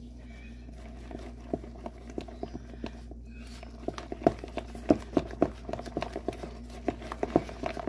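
Cupcake batter being stirred by hand in a mixing bowl, the utensil knocking and scraping against the sides; the knocks come irregularly, several a second, growing more frequent and louder from about four seconds in.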